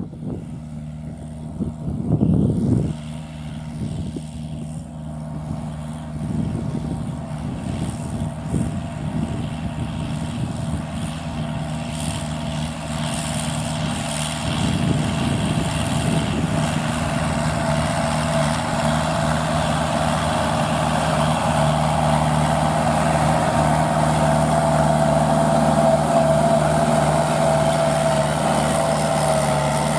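Kubota L5018VN tractor's four-cylinder 50 hp diesel engine running steadily under load while pulling a rotary tiller through dry rice stubble. It grows louder as the tractor comes closer, and a steady whine strengthens in the second half.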